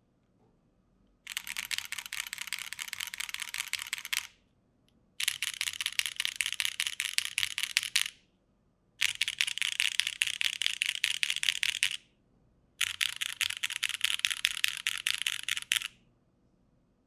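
Custom mechanical keyboard with broken-in, lubed and filmed Cherry MX Black Hyperglide linear switches, an aluminium plate and GMK keycaps, its home-row keys 'asdfghjkl' pressed in rapid runs. Four bursts of fast clacks, each about three seconds long, with short pauses between.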